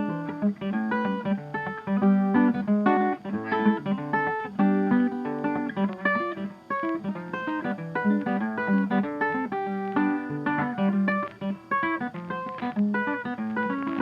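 Background music: a plucked guitar tune with quick notes throughout.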